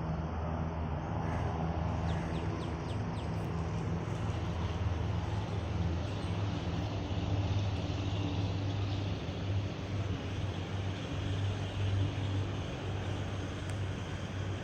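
An engine running steadily with a low hum. A few short high chirps come about two to three seconds in.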